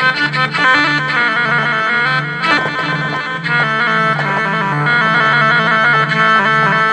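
Electronic keyboard playing a sampled rababa (rebab) voice in an improvised Arabic taqasim-style melody that moves in stepwise pitches, over a low bass note pulsing about twice a second.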